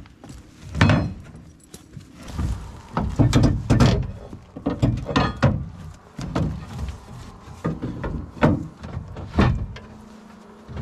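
Heavy gear being handled and set down: a series of irregular knocks and thuds, a dozen or so, with a low rumble between them.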